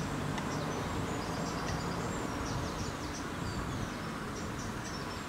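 Park ambience: small birds twittering in quick, high chirps over a steady low rush of wind in the trees.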